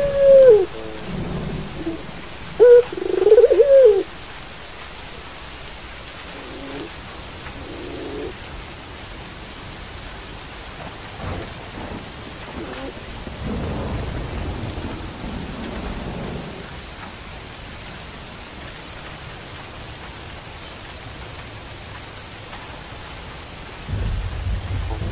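Steady rain with a caged Barbary dove (puter) cooing twice in the first four seconds, then twice more, fainter, around seven to eight seconds in. A low rumble swells about halfway through.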